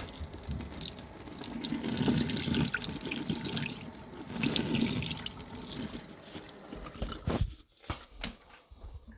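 Hot water from a tap running and splashing over a stuck bottle cap in a sink to loosen it. The water stops about six or seven seconds in, and a few light knocks follow.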